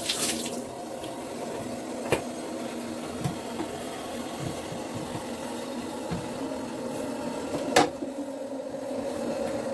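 Toilet being wiped down with a sponge in a gloved hand: soft rubbing, with two sharp knocks, about two seconds in and a louder one near the end, over a steady low hum.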